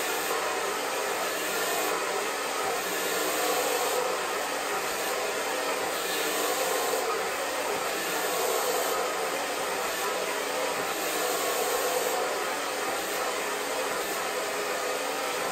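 Handheld hair dryer running steadily, blowing hot air onto a section of hair held up on a round brush.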